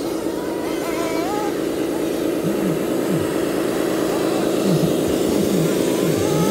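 Radio-controlled 1/14-scale MAN 8x8 dump truck running steadily as it crawls up a dirt pile, a continuous mechanical drone from its drive.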